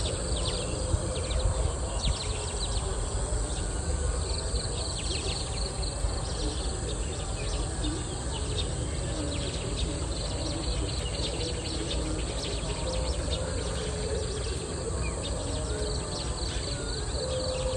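Rural outdoor ambience: a steady high insect drone with frequent short bird chirps over a low background rumble.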